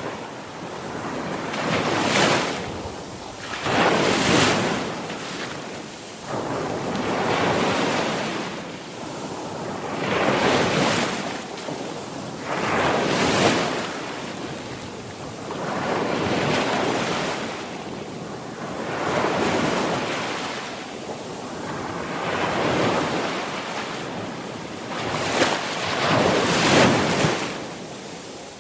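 Sea waves breaking and washing on a shore, each swell rising and falling away every two to three seconds.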